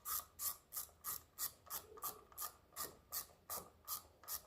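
Hand ratchet clicking in a steady rhythm, about three clicks a second, as the ignition coil pack hold-down bolts are run down.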